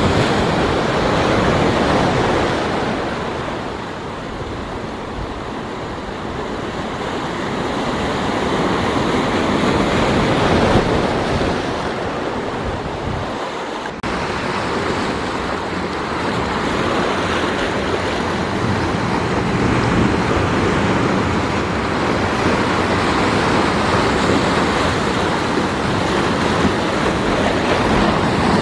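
Sea waves breaking on a rocky shore, surf washing and foaming over and between the rocks. The surge swells and eases over several seconds, dropping a few seconds in and building again to its loudest about halfway through.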